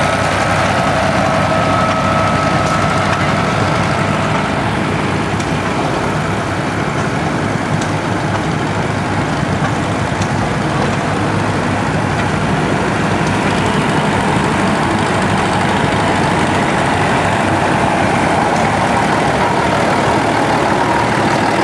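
Vintage farm tractor engines running steadily at close range, with a steady whine over them for the first few seconds.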